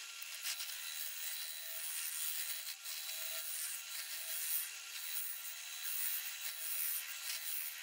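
A lathe chisel cutting a cove into a spinning wooden rolling pin handle: a quiet, steady, thin scraping of shavings coming off the wood.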